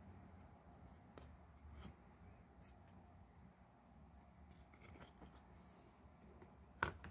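Quiet handling of diorama kit pieces: wall panels and a clear display case being picked up and moved, giving a few faint light clicks and rustles, with one sharper tap near the end as a piece is set down.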